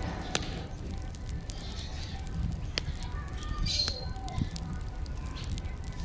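Wind buffeting an outdoor phone microphone, a steady low noise, with faint distant voices behind it.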